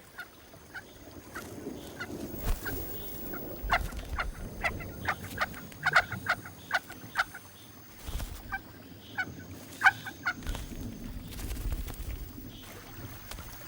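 Picathartes calling: a scatter of short, sharp notes at irregular intervals, several a second at their busiest, with a faint high steady tone coming and going behind them.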